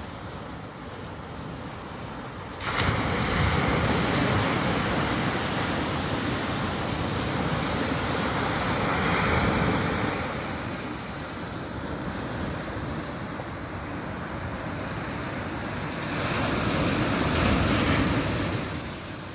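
Waves washing in and wind blowing across the microphone: a steady rushing noise that jumps louder a few seconds in and swells twice more.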